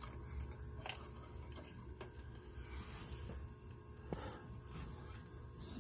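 Faint rustling and a few light clicks of an engine-bay wiring harness and its connectors being handled by hand, over a low background rumble.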